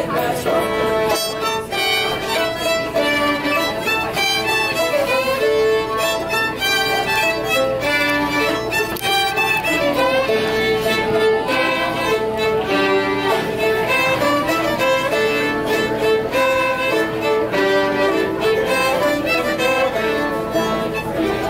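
Several fiddles playing a lively fiddle tune together, with busy runs of notes that go on without a break.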